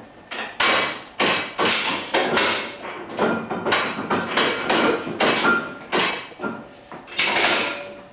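A signal box's level-crossing gate wheel being wound by hand: its gearing clatters in quick repeated strokes, about three a second, with one longer rattle near the end.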